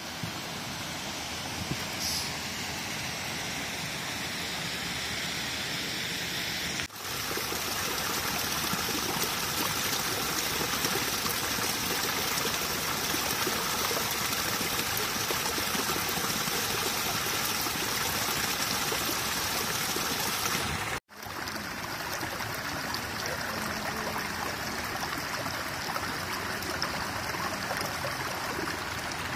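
Running water of a mountain stream, a steady rush. It breaks off sharply about seven seconds in and again about twenty-one seconds in, and is louder between the two breaks.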